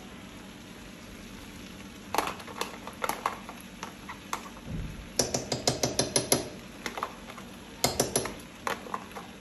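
A metal utensil clicking and tapping against a plastic tub and a frying pan as thick paste is scraped and knocked out. Sharp clicks start about two seconds in, with a fast run of about eight taps a second near the middle and a few more near the end.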